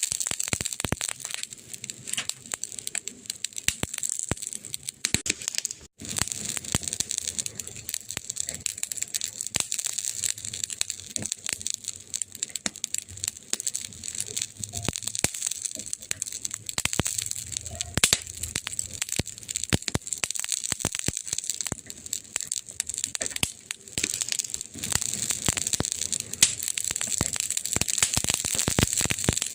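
Wood fire crackling, with dense irregular pops and snaps over a steady hiss; the sound drops out briefly about six seconds in.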